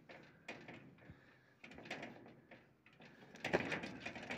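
Metal railing fence rattling and clanking as a person climbs over it and gets down, with several short knocks and a louder one about three and a half seconds in.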